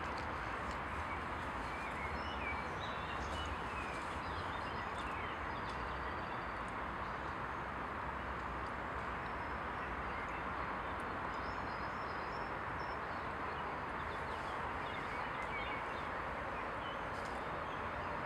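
Steady outdoor background noise with faint, scattered chirps of small birds.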